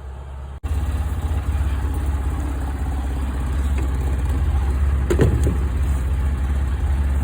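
Polaris Ranger 800 utility vehicle's engine running with a steady low rumble, starting abruptly after a cut. One brief sharper sound stands out about five seconds in.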